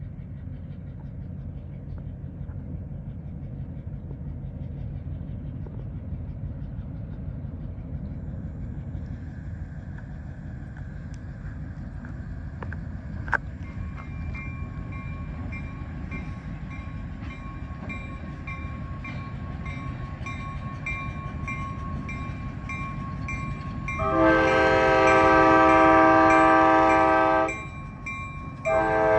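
EMD SW8 switcher diesel locomotive, with its eight-cylinder 567 engine, approaching with a steady low rumble. About 24 seconds in it sounds its horn in a long blast of several tones together, and a second blast starts just before the end.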